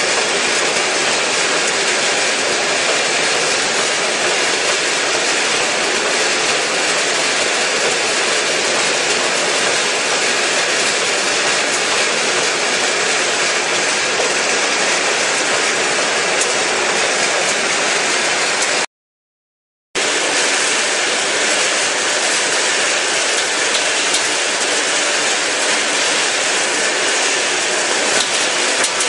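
Puffed corn snack processing machinery running, with the rotating drum and conveyor line giving a steady, loud, even mechanical noise. The sound cuts out completely for about a second, roughly two-thirds of the way through.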